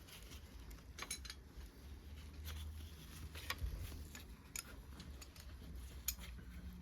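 Scattered light metallic clicks and clinks of tools and engine parts being handled while a Rover V8 is stripped down, about seven in all at irregular intervals, over a low steady hum.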